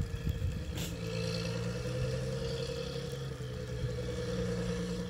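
Chairlift machinery running: a steady mechanical hum with a few fixed tones, after a short click just under a second in.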